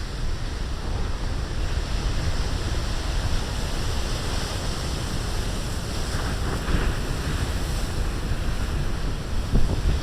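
Large storm-driven ocean waves breaking as steady surf, with wind buffeting the microphone.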